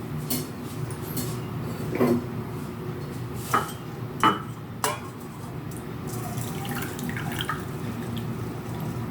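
Thyme tea being poured through a strainer into a glass: liquid pouring and dripping, with several sharp clinks of the pot and strainer against the glass, the loudest in the first half.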